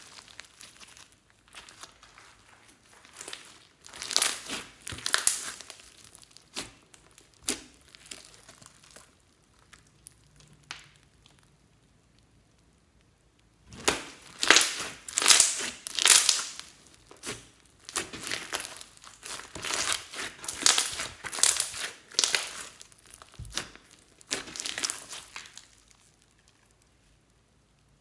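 Glossy slime full of foam beads being stretched, folded and squeezed by hand: wet crackling and squishing in irregular bursts, with a quiet stretch of a few seconds about a third of the way through.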